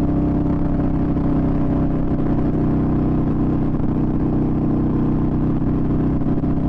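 Yamaha Virago XV250's air-cooled V-twin engine running at a steady cruise, its pitch holding even. The engine is fitted with pod air filters in place of the stock air boxes.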